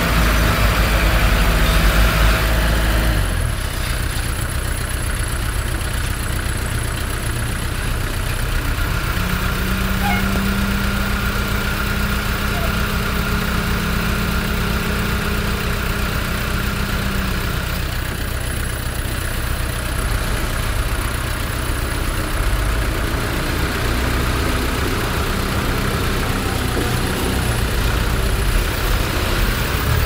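Diesel engines of a dump truck and a small crawler bulldozer running steadily, louder for the first three seconds and then settling lower. A steady drone sounds over them for about eight seconds in the middle.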